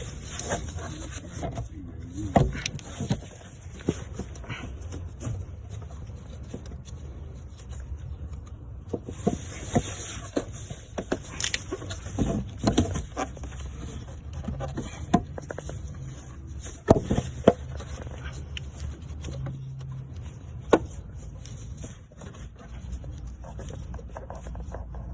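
Scattered clicks and knocks of hands and parts in an engine bay as a new vacuum hose is worked into place, a few sharper knocks among them, over a steady low hum.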